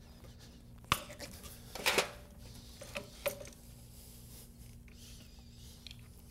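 Hand PEX crimping tool squeezing a crimp ring onto a brass fitting: a sharp metallic click about a second in and a louder double clack near two seconds as the jaws close, then a couple of lighter metal clicks.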